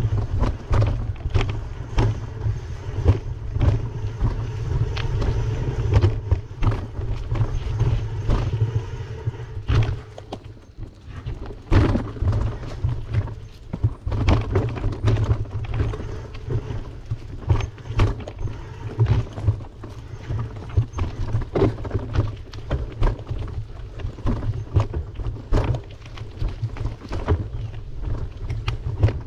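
Riding a bicycle at speed: a steady low wind rumble on the microphone, with frequent sharp rattles and knocks as the bike is jolted. It eases briefly about ten seconds in.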